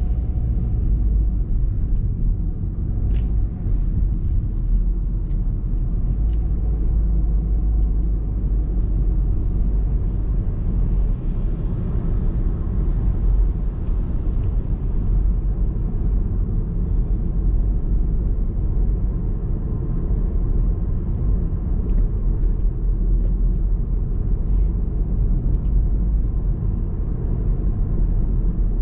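Car driving on city streets: a steady low rumble of engine and tyres on the road, with a few faint ticks.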